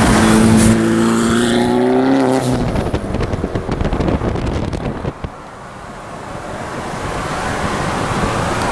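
Car engines and road noise in street traffic, heard from inside a moving car. A steady engine drone for the first couple of seconds, then road noise that drops about five seconds in and gradually builds again.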